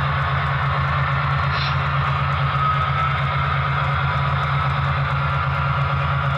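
HO-scale Broadway Limited Paragon 4 EMD F7 diesel locomotives' sound decoders playing the prime-mover sound, a steady low diesel rumble with an even pulse, without breaking up. A brief higher tone sounds about one and a half seconds in.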